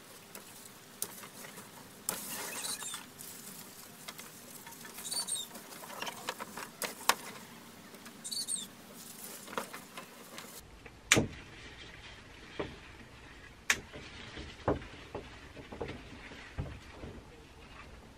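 Yardlong bean pods being picked by hand: leaves and vines rustle, with scattered sharp snaps and clicks as the stems break, the loudest snaps in the second half.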